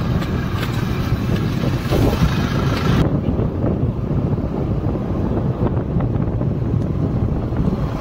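Wind buffeting the microphone over the steady rumble of a moving vehicle. A higher hiss in the noise cuts off suddenly about three seconds in.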